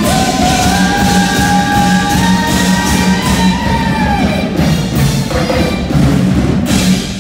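Loud music from a live stage show with a steady driving beat; a long held note rises slightly and stops about four seconds in.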